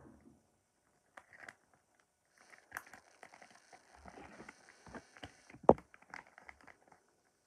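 Rustling and light clicks of toys being handled, with one sharp knock about five and a half seconds in.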